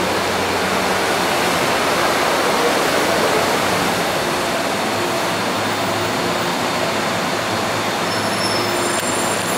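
MTR electric train running through the station along the platform without stopping: a steady rush of wheels on rail with a low hum from the traction motors. Thin high-pitched squeals come in near the end.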